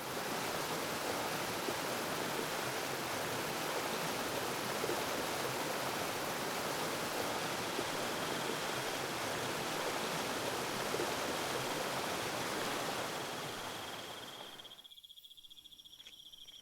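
Steady rush of flowing water, a stream or small waterfall. It fades out about fourteen seconds in, leaving a thin, high insect trill.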